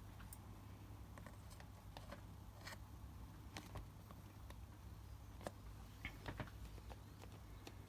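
Faint, scattered clicks and taps of a catch cup, lid and tarantula enclosure being handled, a few a little sharper in the second half, over a low steady hum.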